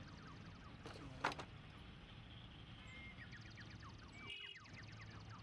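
Faint outdoor ambience: a small bird sings short trills, each a brief note followed by a fast run of chirps, over a low steady hum. A single sharp click comes about a second in.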